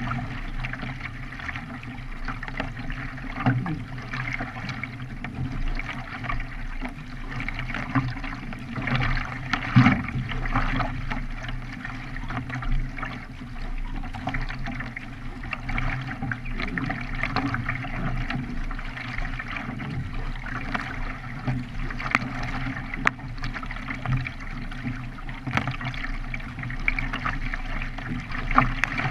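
Water splashing and trickling as a K1 racing kayak is paddled, with irregular small splashes from the paddle blades over a steady low hum.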